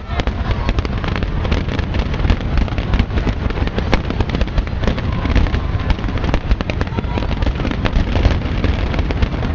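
Fireworks display: a rapid, continuous barrage of bangs and crackles over a low rumble.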